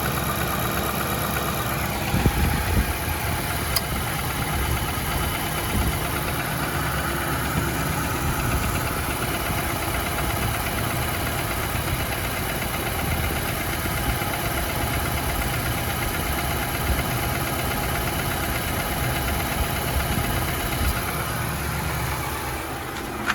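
2018 Nissan Titan's 5.6-litre V8 idling, heard from above the engine, with a light tick or knock at idle and a brief burst of louder thumps about two seconds in. The dealer traced the knock to piston slap in cylinder 7.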